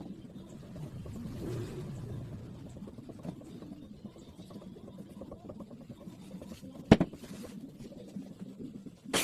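Low rumbling handling noise from work with boards, with one sharp knock about seven seconds in. A loud power tool starts up right at the end.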